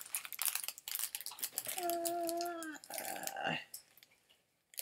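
Plastic packaging crinkling and clicking as a wrapped item is handled and opened by hand, with a short steady tone about two seconds in that dips at its end.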